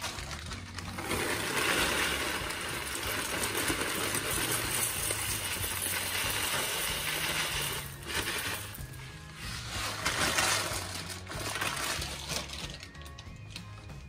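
Dry cereal flakes pouring from a crinkly foil bag into a bowl, a dense pattering rustle in a long pour and then a shorter second one, over background music.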